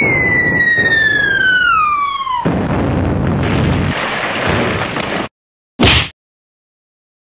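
Sound-effect whistle of an incoming missile, falling steadily in pitch, then an explosion about two and a half seconds in that rumbles on and cuts off abruptly near five seconds. A short sharp bang follows about a second later.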